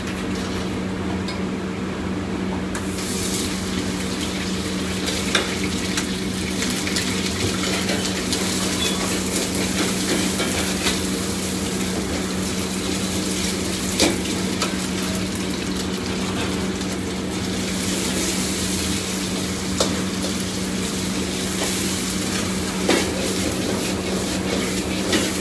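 Food sizzling as it is stir-fried in a wok, with a metal ladle scraping and clanking against the wok now and then; the loud sizzle comes in about three seconds in. A steady low hum runs underneath.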